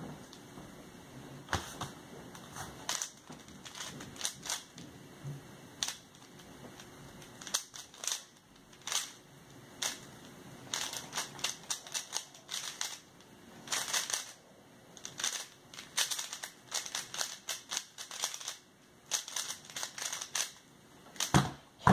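A plastic 3x3 speed cube being turned fast during a timed solve: bursts of rapid clicking and clacking as the layers turn. A loud knock near the end as the cube is put down.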